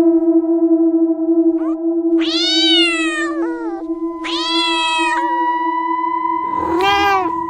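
A domestic cat meowing about four times, each meow under a second long and rising then falling in pitch, over a steady held background music tone.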